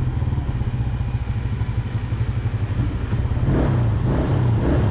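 Small Arctic Cat four-wheeler's engine running steadily, heard from the machine itself, with the engine note picking up about three and a half seconds in.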